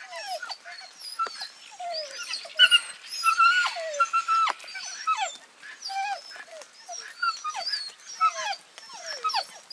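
Young Border Collie whining and yelping in a rapid string of short cries, each falling in pitch.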